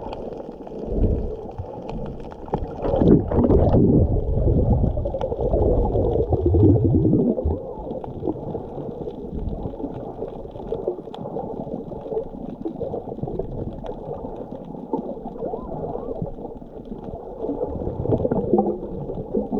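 Muffled underwater sound picked up by a submerged camera: low rumbling, gurgling water noise with the high end cut off, louder in the first several seconds.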